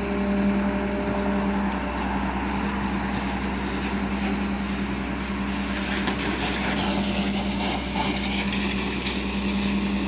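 A vehicle engine idling, a steady hum with one constant tone over an even noise bed.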